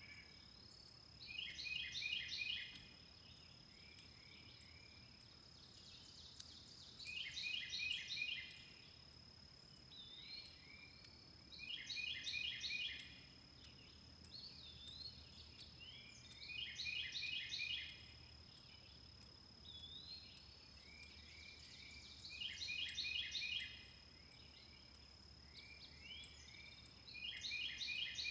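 A songbird repeats a short trilled song about every five seconds, over a steady high-pitched insect whine and a regular very high ticking, about three ticks every two seconds.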